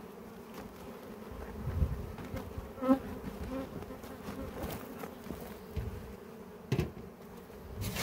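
Honey bees buzzing around an open hive in a steady hum, with a few short knocks.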